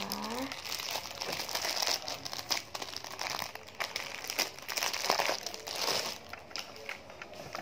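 Clear plastic packaging crinkling and crackling irregularly as an orange-shaped squishy toy is worked out of its bag by hand. The crinkling dies down near the end.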